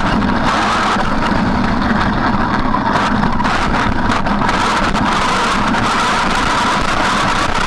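Traxxas E-Maxx electric RC monster truck driving, its motor and gears giving a steady whine over rough running noise.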